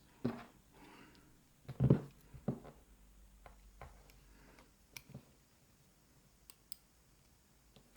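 Small metal lock parts and tools being handled on a padlock: a few soft knocks in the first seconds, the loudest about two seconds in, then several sharp light clicks.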